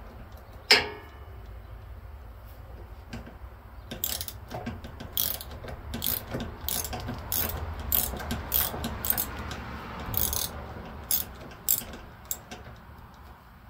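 Hand socket ratchet clicking in quick bursts as it is cranked back and forth, working a bolt on a lawn tractor's steering linkage. A single sharp metallic clank comes about a second in, before the clicking starts.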